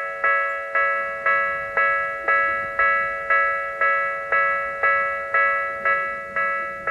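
Japanese railway level crossing warning bell ringing steadily, about two strikes a second, each strike ringing out and fading before the next: the alarm that signals an approaching train.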